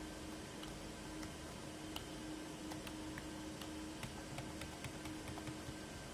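Faint, irregular clicks from the key presses of a computer keyboard, spaced well apart, over a steady low hum and room noise.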